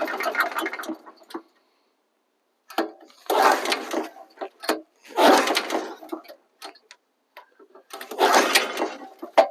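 Small gas engine on a Norwood LM30 sawmill sputters and dies about a second in, then is pull-started three times, each pull of the recoil rope cranking it briefly without catching, because the tank has run out of gas.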